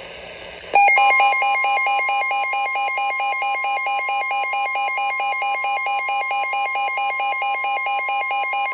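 NOAA weather radio sounding its warning alert: after brief faint static, a loud, rapidly warbling alarm starts about a second in. Under it runs the steady single-pitch warning alarm tone, signalling an incoming severe thunderstorm warning.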